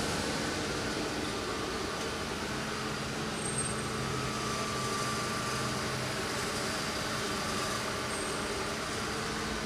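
Amada Aries 245 CNC turret punch standing powered up and idling, without punching: a steady mechanical hum with faint held tones.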